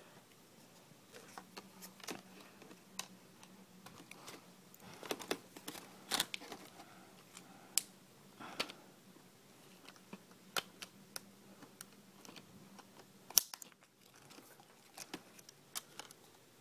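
Scattered small clicks and plastic crinkles as a laptop keyboard's flat ribbon cable is handled and pushed into its connector, with one sharper click late on.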